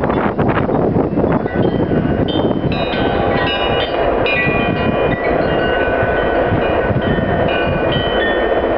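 Union Pacific freight train of autorack and hopper cars rolling past, a steady rumbling noise of wheels on rail. From about two and a half seconds in, many short high ringing tones at different pitches come and go over it.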